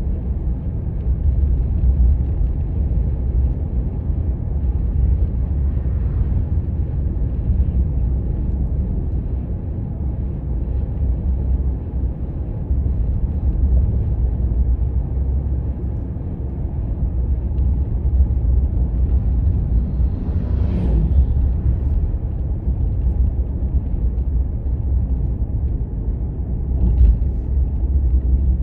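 Steady low rumble of a car being driven on the road, engine and tyre noise, with a brief louder sound about two-thirds of the way through and another near the end.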